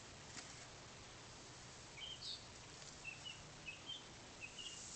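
Faint bird chirps, a series of short high calls starting about two seconds in, over a quiet steady background hiss, with one faint click near the start.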